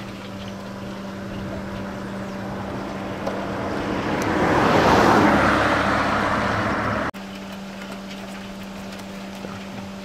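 A road vehicle passing by: its tyre and engine noise swells, peaks about halfway through, then fades, and cuts off suddenly a couple of seconds later. A steady low hum runs underneath.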